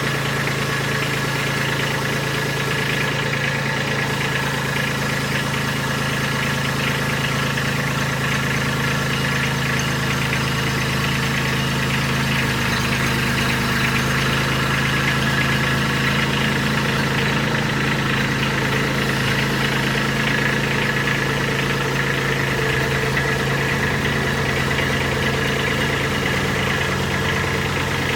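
An engine running steadily at idle, with an even low hum and no change in speed.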